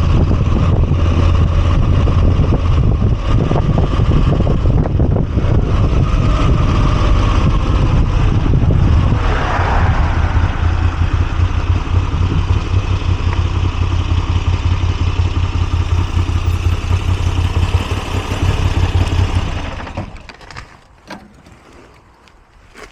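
Moto Guzzi V85TT's air-cooled V-twin engine running steadily at an even, low pitch, then switched off about twenty seconds in, leaving a few faint clicks.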